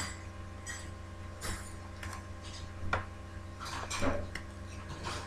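Hands handling and bending a taped paper tube: scattered crinkles, taps and small clicks, with a denser cluster about four seconds in, over a steady low electrical hum.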